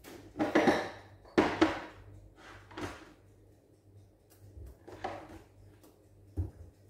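Kitchen utensils clattering and knocking in an overhead cabinet as they are moved about and one is taken out. There are several separate knocks, the loudest about one and a half seconds in.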